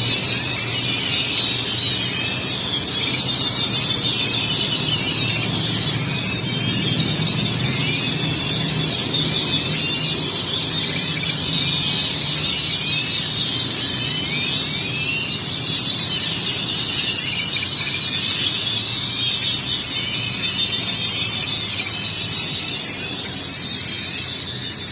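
A dense chorus of many birds calling at once, a constant tangle of short, shrill chirps and whistles, over a low rumble of city traffic.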